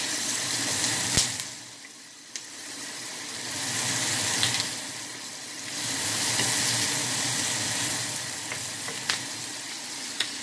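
Chopped onions sizzling in oil in a nonstick frying pan while being stirred with a wooden spoon, with a few sharp clicks. The sizzle drops away for about two seconds from a second and a half in, then comes back.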